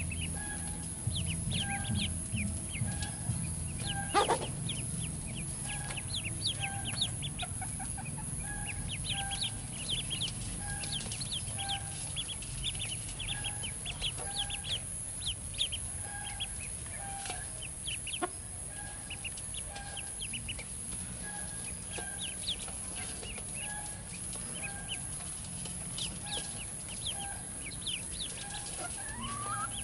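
Baby ducklings peeping: many short, high-pitched cheeps in quick runs.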